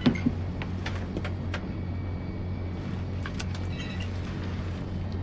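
Steady low mechanical hum of a tank's machinery heard from inside. Two sharp clicks come right at the start, and faint electronic beeps and ticks follow around three to four seconds in.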